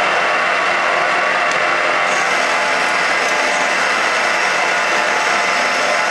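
Microcut Buffalo-Seiki 1740 centre lathe running with its spindle turning and no cut being taken: a steady mechanical whir from the geared headstock.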